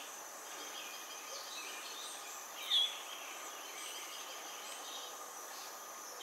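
Outdoor insect chorus: a steady high-pitched drone of insects, with one short high chirp a little under halfway through.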